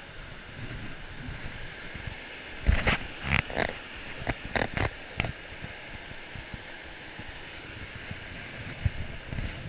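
Steady rush of a waterfall and stream. Between about three and five seconds in comes a cluster of short grunt-like sounds and knocks, from the climber scrambling over the rocks.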